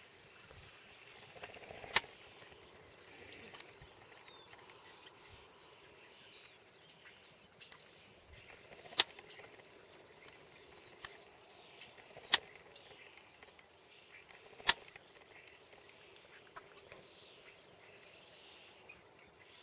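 Faint outdoor background with light bird calls, broken by four sharp, single clicks about two, nine, twelve and fifteen seconds in.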